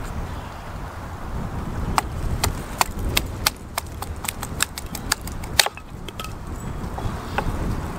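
A run of sharp clicks and knocks, about two or three a second, over a steady low rumble; the knocks start about two seconds in and die away about six seconds in.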